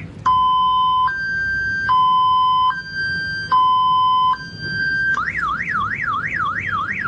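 Electronic alarm siren, like a car alarm, alternating between a low and a high tone about every 0.8 seconds. About five seconds in it switches to a fast up-and-down warble.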